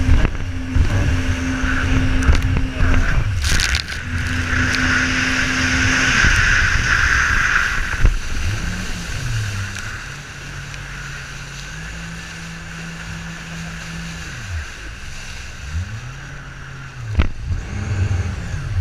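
Jet ski engine running hard with rushing water and wind on the microphone. About halfway through it eases off, and its pitch rises and falls as the throttle is worked through turns. Sharp slaps of water hit twice.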